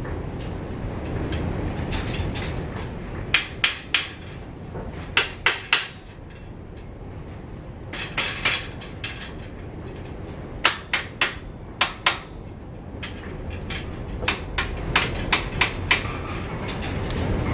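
Hammer blows on a seized bicycle rear wheel to knock it loose. The blows come in short bursts of a few sharp strikes, with pauses between them.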